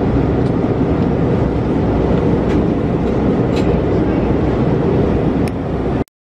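Jet airliner cabin noise: a loud, steady, low roar with a few faint clicks. It cuts off abruptly about six seconds in.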